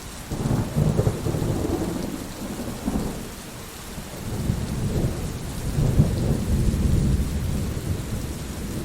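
Steady rain with thunder rumbling in two long, low rolls: the first starts about half a second in and fades after about three seconds, the second builds from about four seconds in and runs on.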